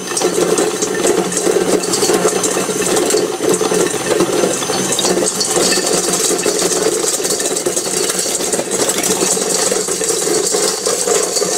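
KitchenAid stand mixer running, its beater churning pencils, markers and broken plastic bits that clatter and rattle without a break against the stainless steel bowl, over a steady motor hum.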